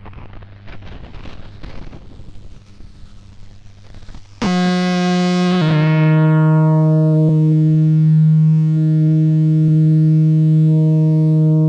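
Electronic tone generator built on a K176LA7 CMOS NAND-gate chip, its output run through software effects. For about four seconds there is an irregular crackling noise with a low hum. Then a loud, steady, buzzy synth tone cuts in suddenly, drops slightly in pitch a second later, and holds.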